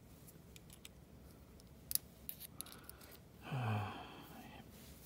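Small clicks and handling of a USB charging cable as its USB-A plug is fitted into a USB-A-to-USB-C adapter, with the sharpest click just before two seconds in. A brief low hum from a man's voice, falling in pitch, follows a little past halfway.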